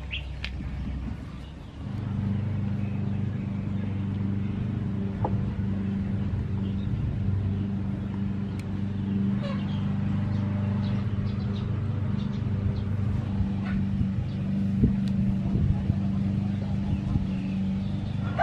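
Steady low hum of an engine running, starting about two seconds in, with a few faint clicks over it.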